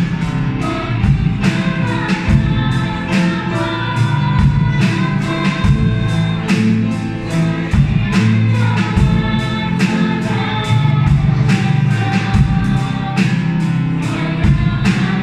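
Background music: a song with singing voices over a steady beat.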